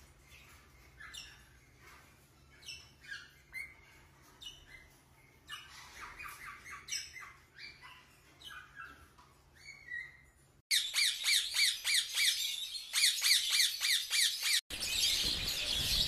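Parrots calling: scattered short squawks and chirps at first, then about ten seconds in the sound jumps abruptly to a loud, fast run of repeated chirps, several a second, and near the end to dense chattering.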